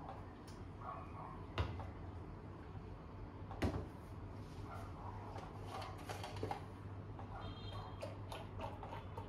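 A ceramic latte cup and a stainless-steel milk pitcher set down on a stainless-steel counter: two sharp knocks, about a second and a half in and again about two seconds later, the second the loudest, over a steady low hum. Smaller clinks and handling sounds follow near the end.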